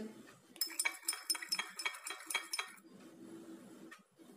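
A spoon stirring in a small dish, clinking rapidly against its sides for about two seconds, then going quieter.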